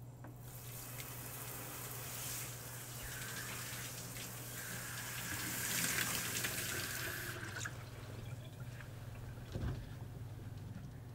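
Kitchen tap running into a sink, with a steady high tone in the flow from about three seconds in, then shut off sharply about seven and a half seconds in. A soft knock follows near the end.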